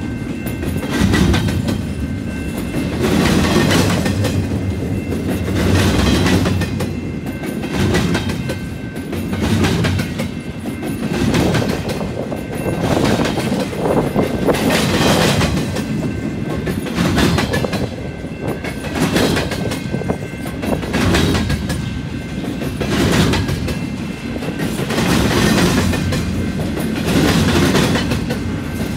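Empty articulated double-stack well cars of a freight train rolling past at reduced speed. The steel wheels rumble and clatter over the rail joints, swelling as each truck set passes, about once every two seconds.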